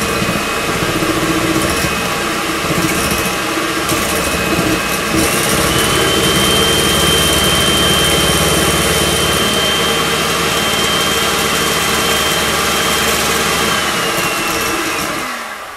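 Electric hand mixer with wire whisk beaters running steadily, whipping espresso and sugar into foam. Its whine steps up in pitch about five seconds in, holds, then winds down near the end as it is switched off.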